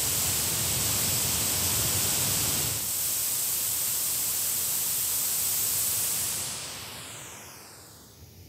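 Steady white-noise hiss from a handheld Bluetooth speaker, picked up by shotgun microphones (a RØDE NTG3, then a Sennheiser MKH 416) in a polar-pattern rejection test. There is a brief break about three seconds in where one microphone's sample gives way to the next. Near the end the hiss fades away with a swishing, phasey sweep as the speaker is moved toward the back of the microphone.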